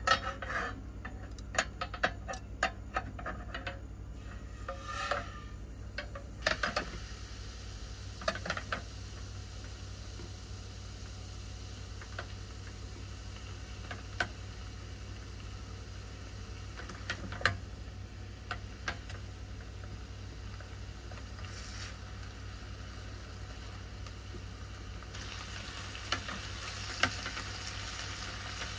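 Pork slices sizzling in a frying pan of sauce on a portable gas burner. Sharp clicks and taps of the utensils against the pan come in the first several seconds, and the sizzle grows louder near the end.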